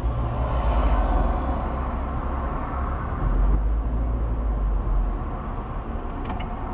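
Steady low rumble of a car's engine and road noise, picked up inside the cabin by the dash cam's microphone as the car moves slowly in traffic.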